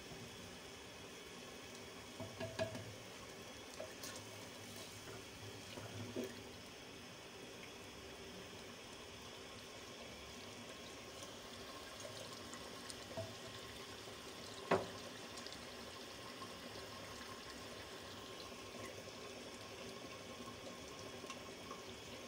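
Leftover stock poured into a clay pot of beef trotter curry at the start, then the liquid in the pot simmering steadily, with a few faint knocks.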